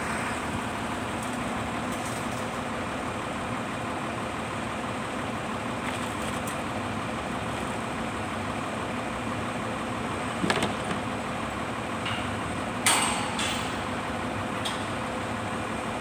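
Mobile truck crane's diesel engine running steadily while it holds a steel rafter in place. Sharp metal clanks, steel striking steel, come about two-thirds of the way through, the loudest ringing briefly, with a few lighter knocks after it.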